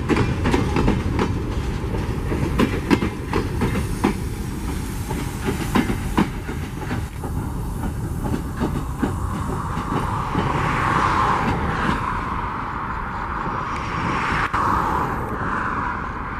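Steel wheels of empty ore hopper wagons clattering over rail joints, with sharp clicks in the first half. The clicks thin out as the wagons move away, leaving a steadier, higher-pitched wheel noise in the second half.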